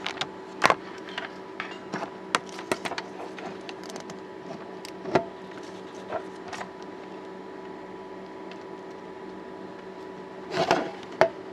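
Scattered clicks, taps and rattles of a multimeter's test probes and leads being handled and set against a power supply plug, over a steady electrical hum. A brief rustle comes near the end.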